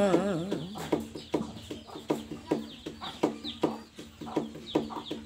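Rhythmic plucked notes on a folk string instrument, about two and a half a second, ringing at the pitch of the song: the instrumental break between sung lines. The last sung note trails off at the start.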